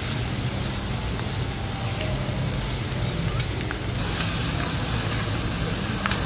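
Wagyu beef sizzling on a teppanyaki iron griddle, a steady hiss over a low hum, with a few light clicks.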